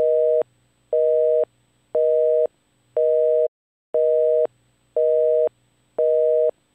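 Telephone busy signal: a steady two-note tone beeping about once a second, each beep half a second long, seven times. It is the engaged tone of a line already in use.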